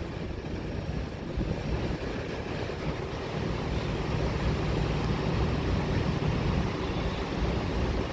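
R68 subway train running away along elevated steel tracks after bypassing the station, a steady low rumble that swells slightly partway through.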